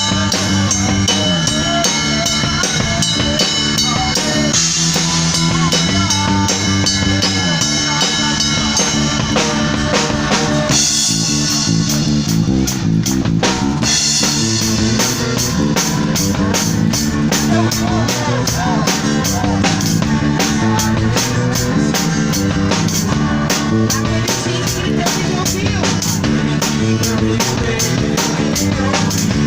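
A live band playing upbeat worship music: a drum kit keeps a fast, driving beat under guitar and sustained chords.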